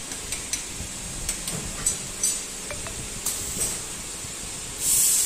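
Light metallic clinks and knocks as a steel motor shell is handled and seated in the welding machine's fixture. Near the end comes a short, loud burst of compressed-air hiss from the machine's pneumatic system, followed by a steadier hiss.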